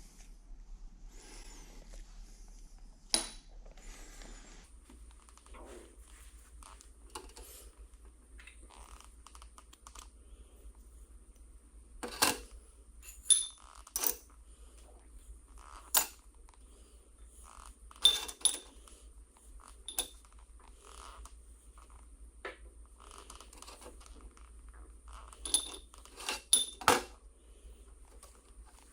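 Small metal parts clinking and being set down on a hard surface: a dozen or so sharp, scattered clinks with a short metallic ring, in a cluster near the end.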